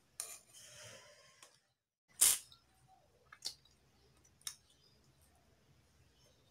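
A metal spoon on a ceramic plate while eating: a soft scrape in the first second or so, then one sharp clink a little over two seconds in, followed by two lighter clicks about a second apart.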